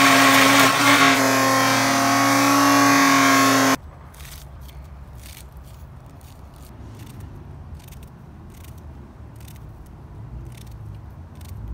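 Cosori countertop blender running at high speed, pureeing fresh herbs and peppers into green seasoning, with a steady whine; it cuts off suddenly about four seconds in. After that come faint, light clicks of a small knife cutting scallions and red onion by hand over a bowl.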